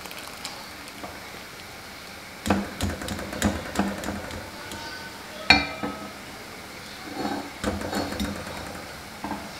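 Wire-mesh skimmer knocking and scraping against a steel cooking pot as boiled corn kernels are scooped out of the water: a string of metal clinks and taps, the loudest a single ringing clink about halfway through.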